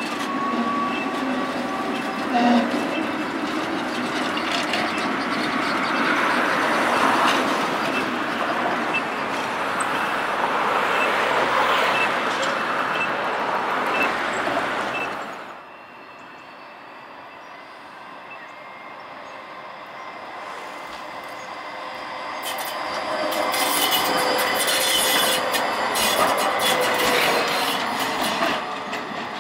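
A red Tatra tram running past on street track, its wheels squealing briefly at the start. About halfway through the sound cuts to a Škoda ForCity low-floor tram drawing near and passing close, with rail clatter and a slowly falling whine near the end.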